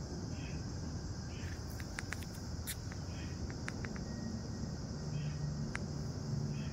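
A steady, high-pitched insect chorus, with a softer chirp repeating about once a second and a few sharp ticks scattered through.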